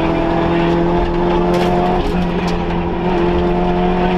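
Vauxhall Nova (Corsa A) rally car's engine heard from inside the cabin, running hard at high revs under acceleration. The pitch climbs slowly, with a brief break about two seconds in that fits a gear change. A few short ticks sound over it.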